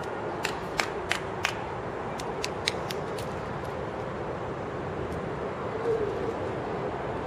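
A run of sharp clicks, about three a second for four clicks and then four more slightly faster, over steady open-air stadium noise. A short pitched voice sound comes near six seconds.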